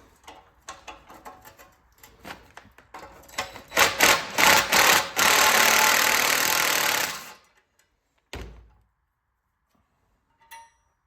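A power tool running a bolt out of a Clinton 410 small engine during teardown: light tool clicks and rattles, then several short loud bursts and a steady two-second run that cuts off suddenly. A single dull thump follows near the end.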